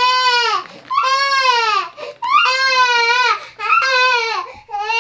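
A young child crying in a run of about five drawn-out wails, each about a second long, rising and then falling in pitch, with short breaths between.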